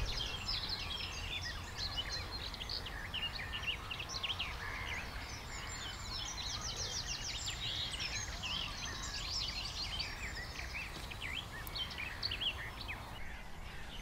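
Several songbirds singing at once: overlapping chirps, trills and quick runs of high notes, over a low steady rumble.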